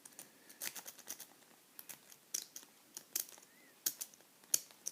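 A SouthOrd triple-peak rake being worked in a Yale padlock's keyway, its metal clicking and scraping over the pin tumblers in a run of irregular, light clicks.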